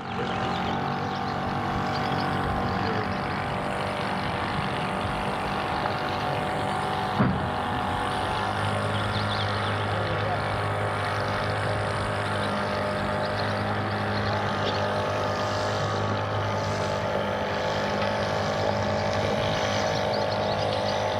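Harbour ambience of boat engines running steadily, several steady hums layered together. A single knock sounds about seven seconds in, and a deeper engine drone joins about a second later.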